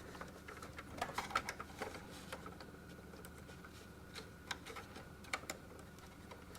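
Faint, scattered small clicks and taps of plastic parts being handled while a data cable connector is fitted onto the thermal printhead, bunched in the first two seconds and sparser later.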